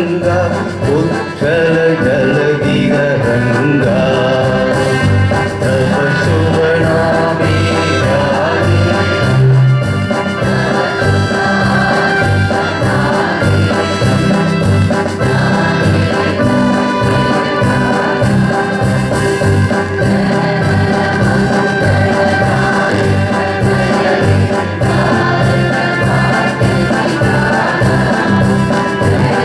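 Music with singing over instrumental accompaniment, playing continuously and steadily.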